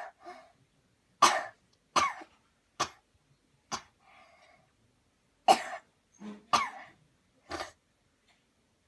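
A person coughing deliberately on cue after a deep breath: a run of short, forceful coughs, about four, a brief pause, then about four more.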